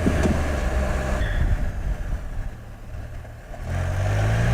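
Can-Am Spyder RT's Rotax 1330 three-cylinder engine running under way. It goes quieter past the middle, then picks up with a rising pitch as it accelerates near the end.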